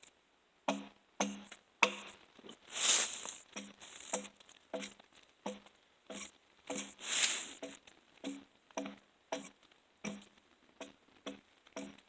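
Axe striking a log over and over, about two blows a second, each hit ringing briefly, as it chips the bark off. About three seconds in and again about seven seconds in, there is a longer, louder rasping sound as bark is scraped or torn away.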